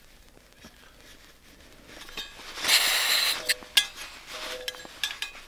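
A small camping gas stove being screwed onto a gas canister: metal clicks and scrapes, with a brief loud hiss of gas about three seconds in as the burner seats on the canister valve.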